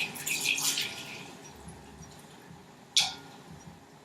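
Hydrogen peroxide poured from a measuring cup into a plastic bottle, splashing and trickling, then fading out about a second in. About three seconds in comes a single sharp click, the loudest sound.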